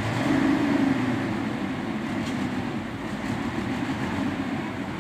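Mobile crane's diesel engine running hard under load while lifting a loaded container, swelling in the first second then holding steady.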